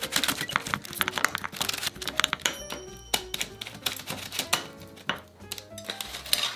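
Rapid, irregular tapping and clicking of wooden chopsticks stabbing through a raw chicken breast into a parchment-lined dish, piercing it all over so it won't burst in the microwave. Background music plays underneath, and the tapping stops near the end.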